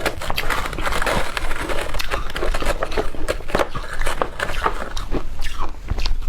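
Shaved ice being bitten and chewed close to the microphone: a rapid, irregular run of crisp crunches and crackles, several each second.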